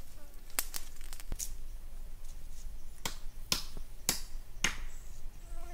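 Wood fire crackling: scattered sharp pops, a few faint ones in the first second and a handful of louder ones from about three seconds in.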